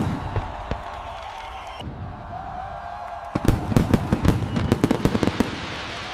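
Fireworks going off: a steady hiss, then a rapid volley of crackling bangs from about halfway through, fading out near the end.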